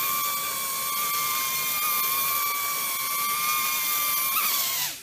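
Hubsan H002 Nano Q4 micro quadcopter's four tiny coreless motors and propellers spinning with a steady high-pitched whine, which winds down and stops near the end.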